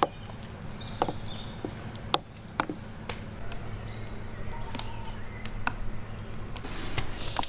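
Metal spoon stirring a thick sauce in a ceramic bowl, clinking sharply against the bowl about ten times at uneven intervals, over a steady low hum.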